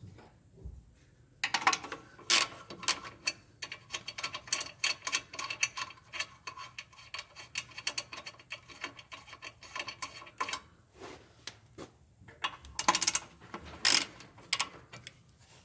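A hand socket ratchet clicking rapidly as caliper bracket bolts are backed out. There is one long run of strokes, then a short pause and a briefer second run near the end.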